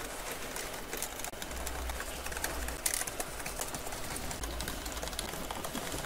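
Light clicks and scrapes of a small screwdriver working the screws of a laptop's bottom cover.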